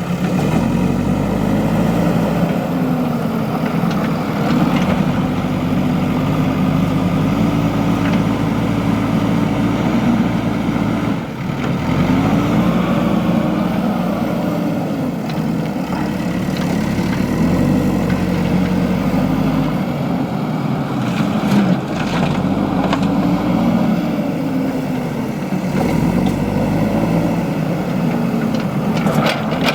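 JCB 3DX backhoe loader's diesel engine working, its note rising and falling every few seconds as the load changes.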